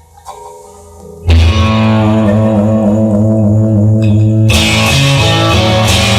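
Rock song with guitar: a quiet intro of a few soft notes, then about a second in the full band comes in loud with sustained chords.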